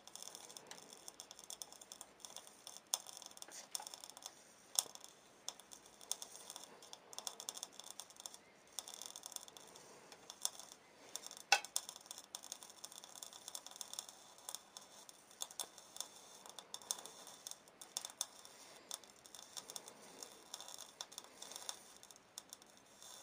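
Irregular crackling and spitting of a tin can lid's metal burning under a 100 W blue diode laser beam, sparks spattering off the spot, with one sharper snap about halfway through.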